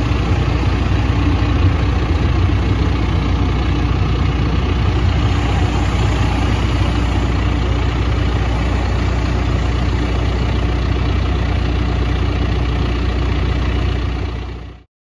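Diesel engine of a skid-steer loader running steadily, heard from inside its operator's cab, with a constant low hum; the sound fades out near the end.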